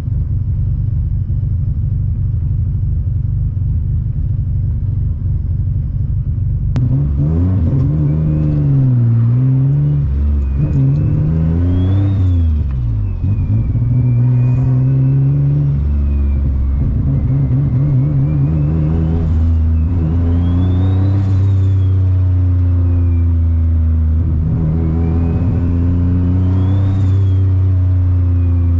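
Turbocharged Infiniti G35's VQ35DE V6, heard from inside the cabin, running steadily at rest, then pulling away about seven seconds in and accelerating through the gears, its pitch climbing and dropping at each shift. A thin high whine rises and falls with the revs over it, typical of the turbo spooling.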